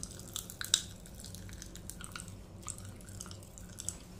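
Popping candy crackling inside a mouth, picked up by an earphone microphone held at the lips: irregular small pops and clicks as the candy's trapped carbon dioxide bursts free in saliva.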